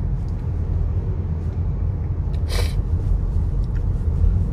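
Steady low rumble, with one short breathy puff from the speaker about two and a half seconds in.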